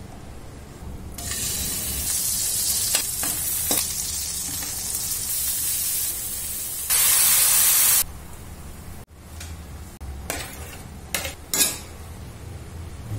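Vegetables sizzling as they are stir-fried in a metal wok, with a spatula scraping against the pan. The sizzle is loudest around seven to eight seconds in, then drops to quieter stirring with a few sharp scrapes.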